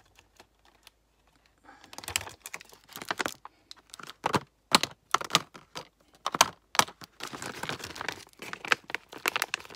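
Handling of a clear plastic pouch of lipsticks as the tubes are put back in: the plastic crinkles under a quick, irregular run of sharp clicks and rattles from the lipstick tubes. It starts after a short quiet moment at the beginning.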